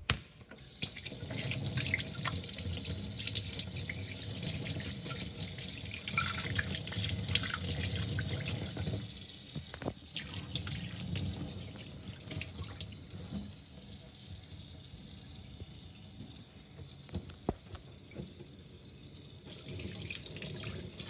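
Kitchen tap running into a stainless steel sink with a wire rack, the stream splashing on the steel. About nine seconds in it becomes quieter as the water runs over a hand.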